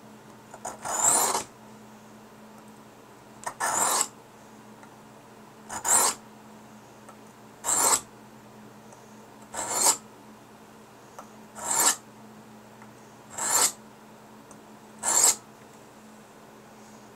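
A blunt stainless steel kitchen knife drawn across the diamond side of a Fallkniven DC4 sharpening stone. There are eight short scraping strokes about two seconds apart, reshaping the profile of the dull edge.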